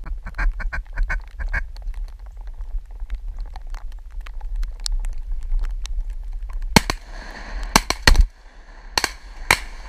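Ducks quacking in a quick run of calls, then a volley of shotgun blasts from several hunters, about six shots fired close together in the last three seconds. Light rain ticks on the microphone in between.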